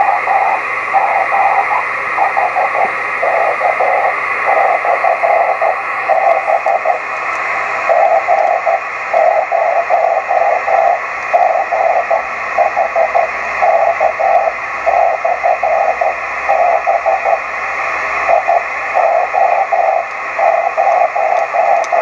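The Finningley G0GHK/B 10 GHz beacon's Morse code identification, heard through a Yaesu transceiver's speaker over steady receiver hiss. The keyed tone is rough and smeared rather than clean because the signal arrives by rain scatter off a storm cloud.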